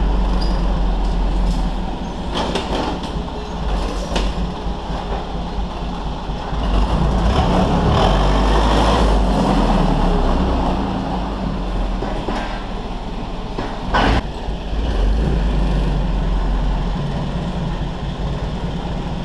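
Old Yale forklift engine idling with a steady low rumble, with a few sharp metallic knocks and clanks, the loudest about 14 seconds in.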